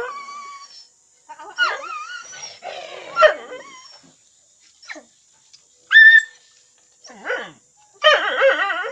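A pack of dogs whining and yelping in separate bouts of high, wavering cries with short pauses between, one brief rising yelp among them: dogs begging for their food at feeding time.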